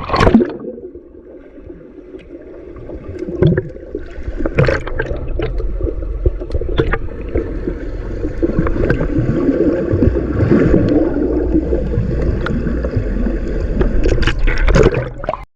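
Wave-pool water gurgling and sloshing right against the microphone, muffled, with a few sharp splashes.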